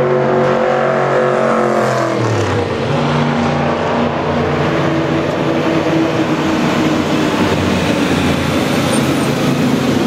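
Historic racing car engines running hard on a circuit. One car's engine note holds high, then drops in pitch about two seconds in. Another car's engine then comes through the corner with a rougher, mixed note.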